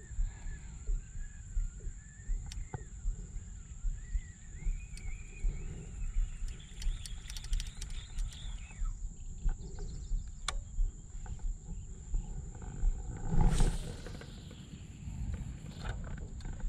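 Wind rumbling and buffeting on the microphone in open country, with a faint wavering whistle-like tone and a steady high hum. A sudden loud knock, likely handling of the camera or rod, comes about three quarters of the way through.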